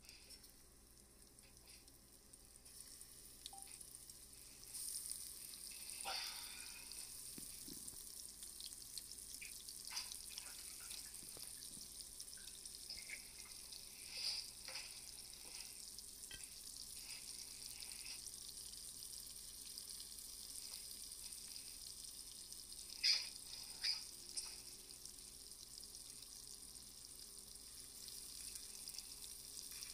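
Shrimp frying in melted butter in a small skillet: a steady sizzle sets in about five seconds in, with a few sharp clinks of a metal fork against the pan, the loudest two a little over twenty seconds in.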